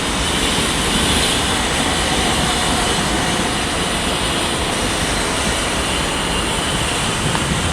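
A pair of Class 387 Electrostar electric multiple units running into the platform, giving a steady noise of wheels on rail and electric traction equipment.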